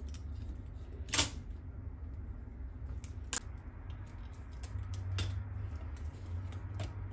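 Scattered sharp clicks and small crackles of a plastic CD being handled while its printed top layer is peeled off, the loudest click about a second in. A low steady hum lies underneath.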